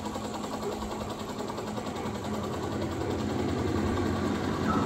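Recorded helicopter sound played through exhibit speakers: a fast, even rotor chop over a steady engine hum, growing a little louder toward the end.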